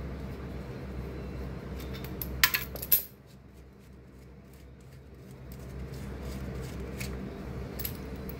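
Light metal clinks as an oil line and its fittings are worked past the oil pan and exhaust downpipe under the car: two sharp clinks about two and a half and three seconds in, and a few faint ticks near the end. A steady low hum sits underneath and drops away for a couple of seconds after the second clink.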